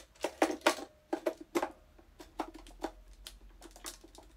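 A dozen or so irregular plastic clicks and taps, the loudest in the first second, from handling a mini handheld vacuum while pushing its filter into place. The vacuum's motor is not running.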